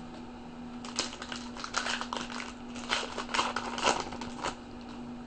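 Trading card pack wrapper crinkling and rustling as a pack is torn open and the cards handled, in a flurry of short crackles from about a second in until near the end, over a steady low electrical hum.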